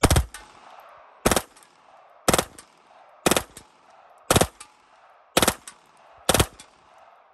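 AK-47 rifle, run without its dust cover, firing seven short bursts about a second apart, each followed by a ringing echo.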